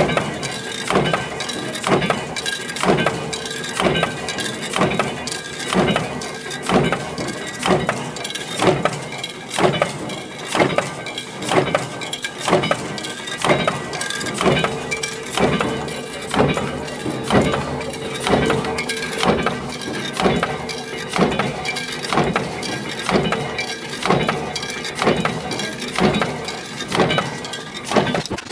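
Power presses stamping steel strip into concealed cabinet hinge parts: repeated sharp metal strikes, roughly one a second and not quite even, over continuous workshop machine noise with a faint steady hum.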